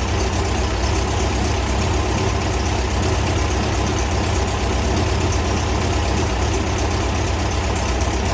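Air-cooled VW flat-four engine of a Meyers Manx dune buggy idling steadily on its first run.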